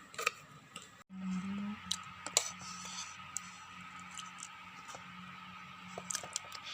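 Scattered light clicks and taps of kitchen utensils over a steady low hum.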